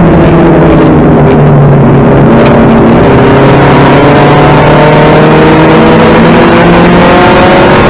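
1992 Toyota Celica GT race car's four-cylinder engine under racing load, heard from inside the caged cabin and very loud. The engine note dips about a second in, then climbs steadily over the next several seconds as the car accelerates, easing off again near the end.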